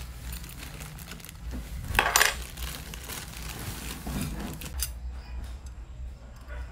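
Small metal rotisserie fittings clinking inside a plastic bag as it is handled, with a louder metallic clatter about two seconds in.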